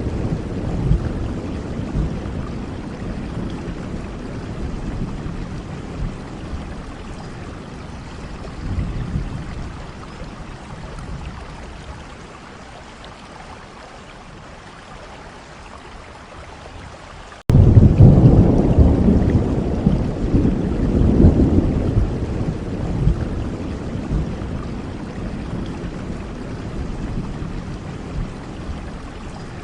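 Steady rain with low rolling thunder that fades away over the first half. About halfway through, a loud rumble of thunder starts suddenly and dies away slowly over several seconds.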